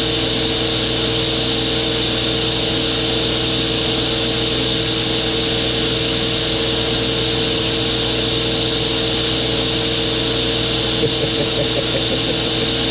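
Belt-driven table saw running free with no cut, a steady hum and whine, its motor drive belt freshly tightened.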